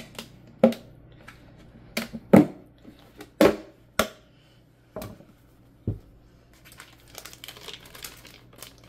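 Plastic tub of lightweight spackle being handled, with a run of sharp knocks and clatters as it is set down and its plastic lid is pried off. Soft plastic crinkling follows near the end.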